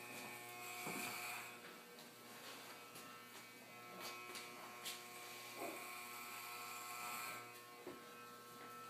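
Electric hair clippers running with a steady buzz while shaving a head, with a brighter hiss for most of the stretch and a few faint clicks.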